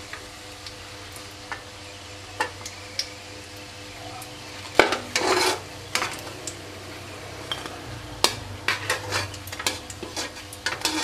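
Metal spatula scraping and clinking against a wok while lifting out frying food, over a low sizzle of oil. There are scattered taps at first, a loud scrape about five seconds in, then a quick run of clinks near the end.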